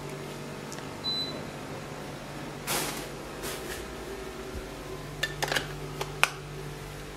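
Air conditioner giving one short, high beep about a second in as it takes a command from its remote, over a steady low hum. Then a rustle and a few sharp clicks near the end.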